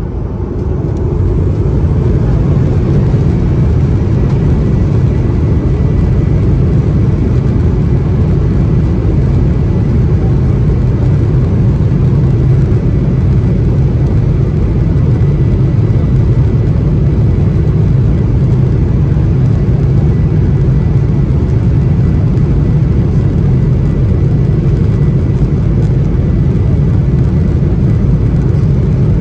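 Cabin noise of a Boeing 737-800 moving slowly on the ground: the steady low rumble of its CFM56 jet engines and airframe, with a faint thin whine above it. The rumble swells over the first couple of seconds, then holds level.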